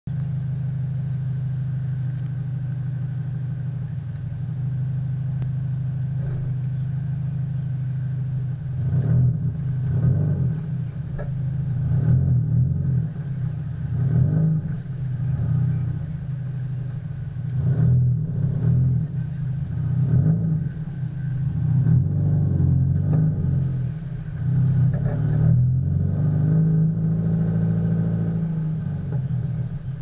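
Subaru Impreza STI's turbocharged flat-four running through an A.R.T. titanium aftermarket exhaust: a steady low drone at first, then from about eight seconds in the note rises and falls in repeated surges as the throttle is opened and closed. It is slightly muffled by the camera's waterproof housing.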